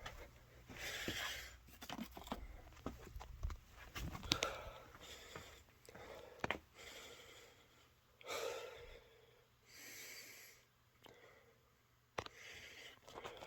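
Quiet breathing close to the microphone, a soft breath every few seconds, with scattered clicks and handling knocks. No alarm horn is sounding.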